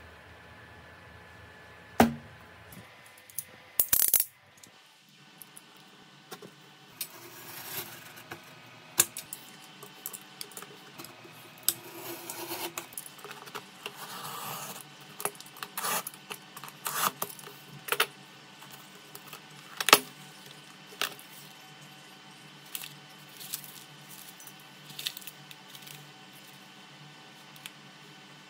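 Hands unboxing a taped cardboard parcel: sharp taps and clicks of the box and a cutting tool, with stretches of rustling and scraping as the packing tape is cut and the flaps are opened. The loudest clicks fall about 2, 4 and 20 seconds in.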